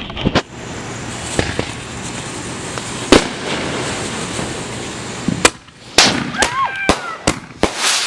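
Backyard consumer fireworks going off close by: a steady hiss with a couple of sharp bangs, then a rapid string of loud cracks from about five and a half seconds in. Short shrieks of voices rise and fall among the last bangs.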